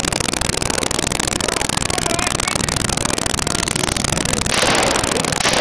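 Loud, heavily distorted crackling noise from an overloaded recording. A brighter hissing surge comes about four and a half seconds in and lasts about a second.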